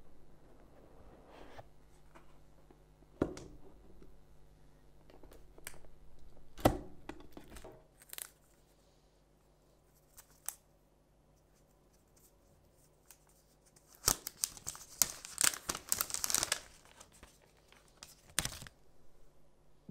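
Hands unboxing a smartphone: scattered knocks and taps of the cardboard box and its lid, the sharpest about three and seven seconds in. In the second half comes a run of crinkling and tearing as the clear plastic protective film is peeled off the phone's back.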